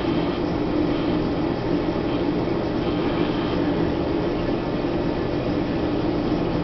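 Steady drone and hiss of a running reef aquarium's equipment, its pumps and circulating water, unchanging throughout.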